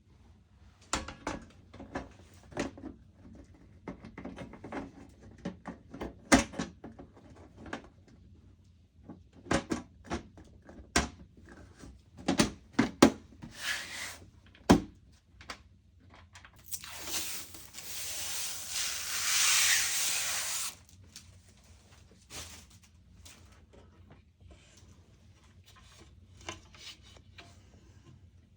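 Scattered clicks and knocks of hard parts being handled and fitted, with a steady rushing noise lasting about four seconds past the middle.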